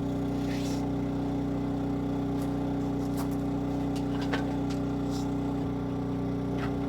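Generator engine running steadily, a constant even hum, with a few faint clicks.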